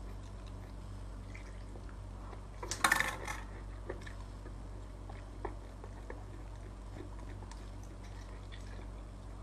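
Slurping as small cooked snails are sucked off a skewer and out of their shells: one loud slurp about three seconds in, then faint wet smacks and clicks over a steady low hum.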